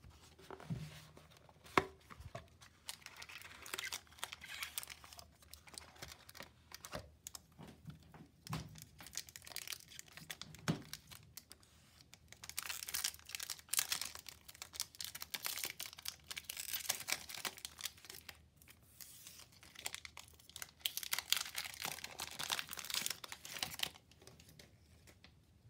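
Plastic and foil wrappers crinkling and tearing as a Magic: The Gathering collector booster box is opened and a foil booster pack is torn open. A few sharp cardboard clicks and taps come in the first couple of seconds, and the heaviest crinkling is in the second half.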